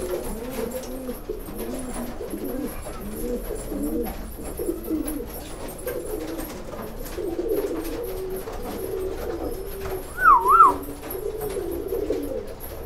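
Domestic pigeons cooing over and over, low rolling coos that overlap. About ten seconds in comes one brief, loud warbling whistle.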